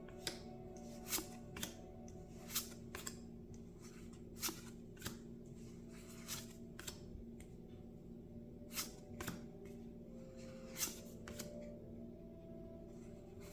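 Trading cards from a freshly opened booster pack being flipped through one by one: short, crisp card snaps at an irregular pace, often two close together.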